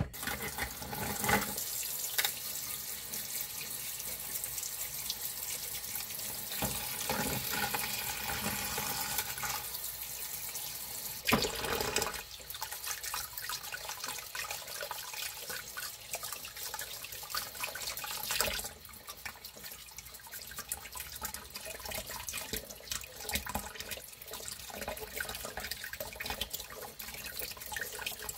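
Tap water running into a plastic bowl of red scallops in a stainless-steel sink, with a toothbrush scrubbing and clicking against the shells to clean them. The water gets noticeably quieter about two-thirds of the way through.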